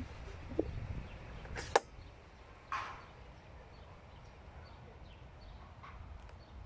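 Handling noise from a hand-held phone microphone: a low rumble with a sharp click a little under two seconds in and a short whoosh about a second later.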